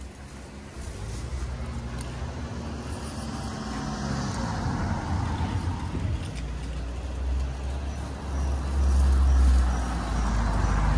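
A motor vehicle running past, a low rumble that builds and is loudest about nine seconds in.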